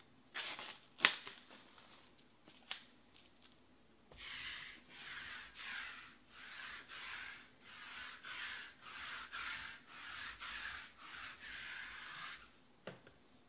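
Lint roller rolled back and forth over the table, about fourteen scratchy strokes at a little under two a second. A few sharp taps and clicks come before it, the loudest about a second in.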